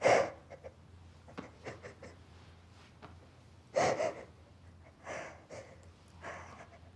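A person crying in gasping, breathy sobs: a sharp gasp at the start, another about four seconds in, and softer shaky breaths between.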